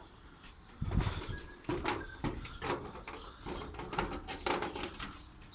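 Irregular clicks, taps and rustling, as of objects being moved and handled at close range.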